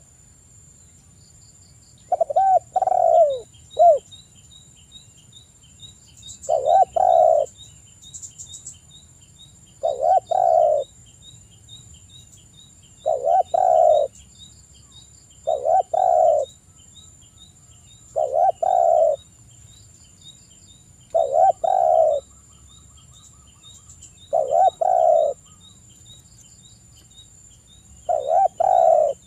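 Spotted dove cooing: a short phrase of two or three coos, repeated about every three seconds.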